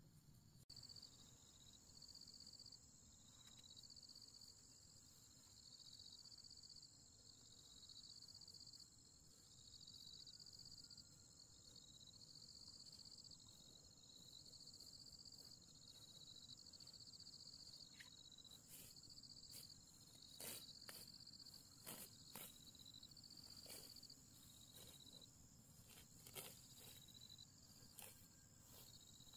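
Faint insects calling: a steady high buzz, with a pulsing chirp every second or so. From about two-thirds of the way in come short sharp crackles and rustles of dry grass being walked on and handled.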